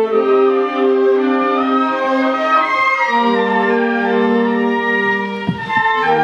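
Concert wind band of woodwinds, saxophones and brass playing held chords. The harmony moves to a lower chord about three seconds in, and there is a brief low thud near the end.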